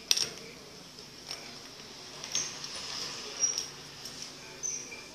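Wooden pencil tapping and clicking against a hard tiled floor as a cat bats at it: five or so sharp clicks about a second apart, the first the loudest, with a couple of faint short high squeaks in between.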